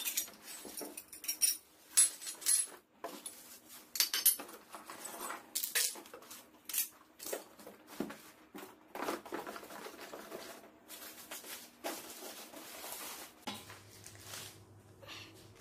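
Metal motor-kit parts clinking and clattering against each other and the tile floor, with plastic wrapping and cardboard rustling, as the kit is unpacked from its boxes.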